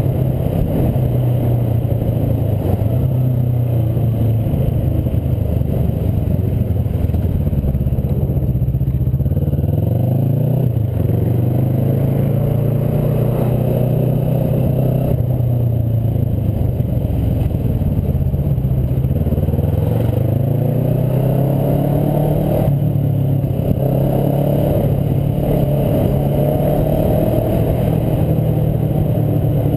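Yamaha X-Max 250 scooter's single-cylinder four-stroke engine running under way, its pitch dropping and rising again a few times as it slows and picks up speed.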